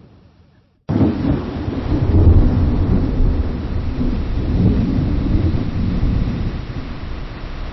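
Thunder dying away to a moment of silence, then about a second in a sudden lightning strike followed by a long, deep rolling rumble of thunder that swells and slowly fades.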